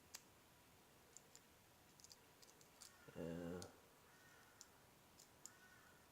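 Faint, sharp clicks of a lock pick and tension wrench working the pins of a training lock, scattered irregularly. A short hum from a man's voice a little over three seconds in.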